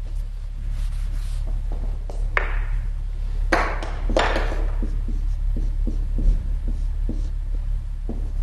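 Pen or marker strokes on paper: three longer scratchy swishes a few seconds in, then short light taps and ticks of the pen. A steady low electrical hum runs under it.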